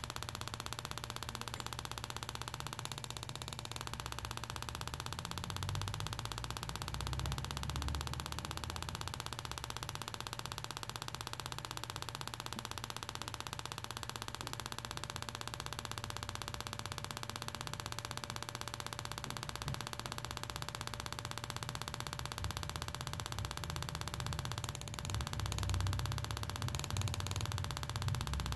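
KTM 1190 Adventure stick ignition coil on a test jig, firing its spark plug over and over: a steady, rapid ticking buzz of sparks. A few low bumps come near the end.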